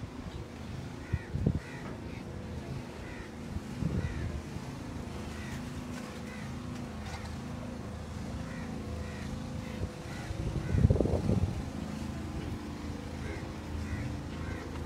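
Steady low machine hum under repeated short bird chirps, with a few low rumbling bumps, the loudest about eleven seconds in.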